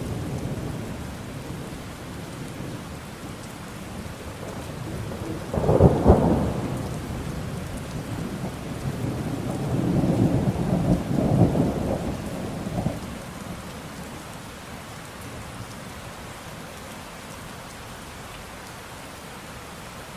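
Steady rain falling, with a sudden loud thunderclap about six seconds in, followed by a longer rolling rumble of thunder that fades out after about thirteen seconds, leaving the rain alone.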